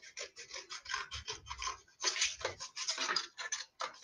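Scissors cutting through painted paper in a run of short, crisp snips, several a second, as a paper cut-out is cut around its outline.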